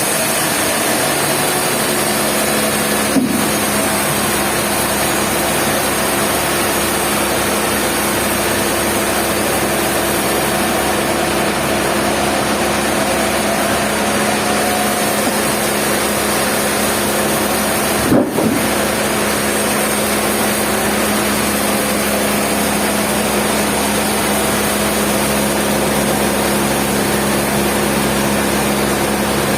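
Sawmill machinery running, a loud, steady mechanical drone with a constant hum, briefly broken about 3 and 18 seconds in.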